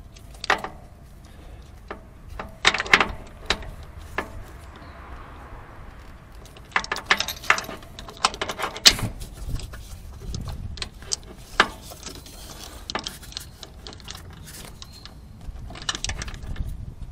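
Hand ratchet with an extension and spark-plug socket clicking in several short bursts, with light metal tool clatter, as a spark plug is given its final tightening.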